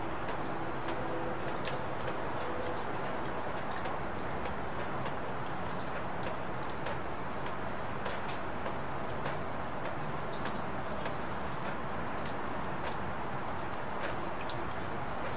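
Steady rain falling, with individual drops tapping sharply at irregular intervals, about two a second.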